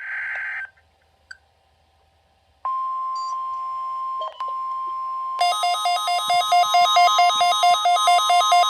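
NOAA Weather Radio test broadcast on a Midland WR-120 receiver at full volume: a SAME header data burst screeches and cuts off, and after a short silence the steady weather-alert tone starts. About three seconds later the receiver's own alert beeping begins, loud and rapid, over the tone: the radio setting off its alarm for the Required Weekly Test.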